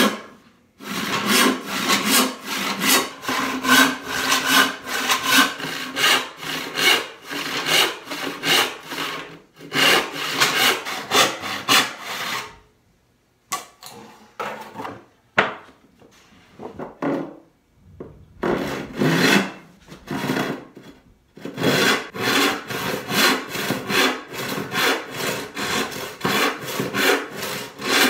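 Handsaw resawing a walnut board along its grain: long push-and-pull strokes rasping through the wood in a steady rhythm. About halfway the sawing stops briefly, runs quieter and more broken for several seconds, then the full strokes resume.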